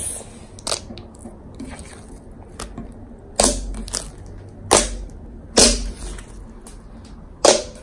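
White glossy slime being folded and pressed by hand to knead in pink colorant, giving a series of sharp pops and clicks from trapped air, four of them loud.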